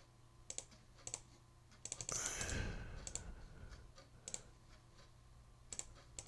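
Faint, scattered clicks of a computer mouse and keyboard, about ten in all, some in quick pairs. A soft breathy rush comes about two seconds in.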